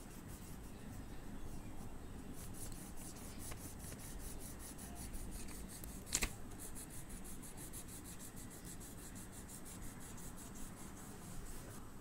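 Oil pastel stick scraping back and forth on drawing paper in quick, even colouring strokes, about four a second. One sharp tap stands out about halfway through.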